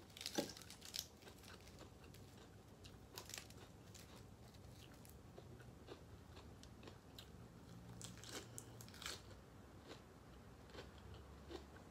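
A person faintly chewing and biting food, a mouthful of pho, with scattered small crunches and clicks, several in a cluster near the start and again about eight to nine seconds in.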